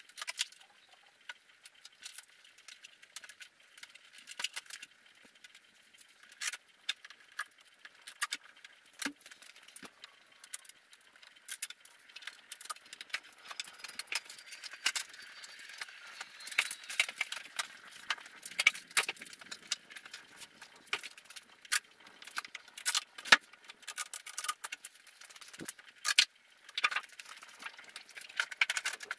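Handling noise from thin aluminium aircraft wing skins being lifted out of a foam-lined packing crate and slid onto an overhead rack. It is a run of scattered light clicks, rattles and knocks, unevenly spaced throughout.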